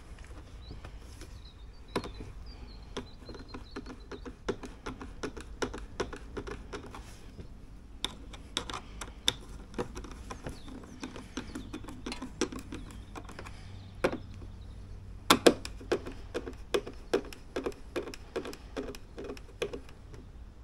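Hand screwdriver turning a screw into the plastic housing of a motorhome side marker light, with many small irregular clicks and taps.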